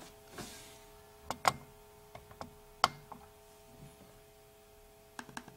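Sharp clicks from a MacBook trackpad, about eight of them at uneven intervals, the loudest about one and a half and three seconds in, over a faint steady hum.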